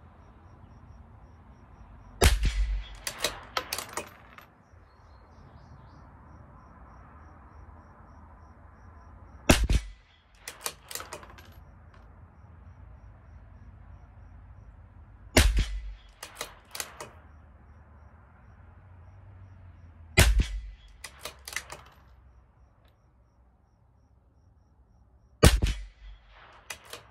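CZ 457 LRP bolt-action .22 LR rifle firing Eley Force ammunition, five shots several seconds apart. Each shot is followed within about a second by a quick run of metallic clicks as the bolt is worked to eject the case and chamber the next round.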